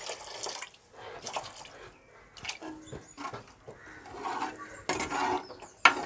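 Water poured in a thin stream into a clay pot of thick curry gravy for about the first second. The gravy is then stirred with a plastic spoon, sloshing and scraping against the clay, busiest near the end.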